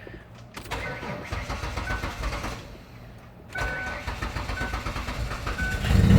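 A 1999 Ford Windstar's 3.8-litre V6 being cranked and starting, then running; it gets much louder near the end. The van has an exhaust leak at a split flex-pipe joint, and the engine sounds rough.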